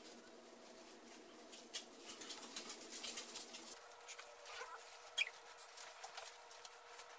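Faint rustling and crinkling of disposable diapers being handled and rolled tightly into a wheel, with a sharp click about five seconds in.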